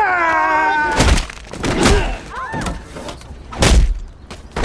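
Fight sound effects: a man's drawn-out, falling cry of pain, then heavy punch and body impacts with short grunts between them, the loudest impact a little before the end.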